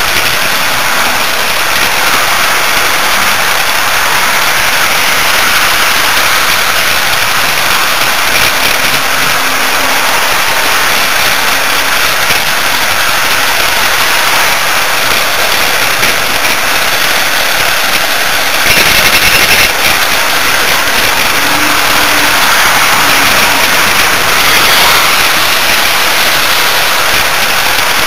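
Steady rolling noise of an HO-scale model train running, picked up by a small camera riding on the layout's track: wheels on the rails and the train's motor. It swells briefly about two-thirds of the way through.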